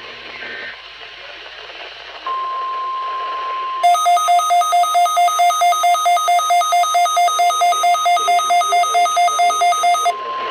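NOAA Weather Radio alert tones at the start of a required weekly test: a steady electronic tone for about a second and a half, then a fast warbling alarm that alternates between two pitches about five times a second for some six seconds. It ends abruptly, and the steady tone picks up again.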